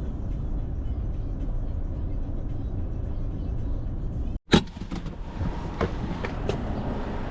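Car road noise, a steady low rumble. It cuts off abruptly a little past four seconds in, followed at once by a sharp click and a few lighter clicks.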